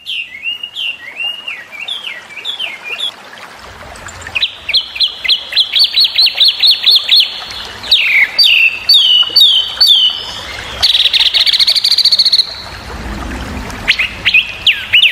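Chinese hwamei singing a loud, varied song of clear whistled notes that glide up and down. It includes a run of quick repeated downslurred notes, about three to four a second, and later a rapid trill.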